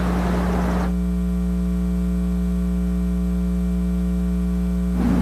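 Electrical mains hum from the sound system: a steady low hum, joined by a brighter, many-toned buzz from about a second in that drops away near the end.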